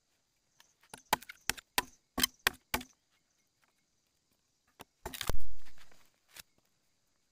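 A knife chopping into a green bamboo stalk: a quick run of about eight sharp blows, then after a pause one louder crack with a short fading tail as a strip of bamboo splits away.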